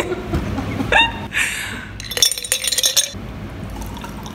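Ice cubes clinking and rattling into a glass mason jar, the glass ringing briefly at the first hit. Near the end, sparkling water pours over the ice.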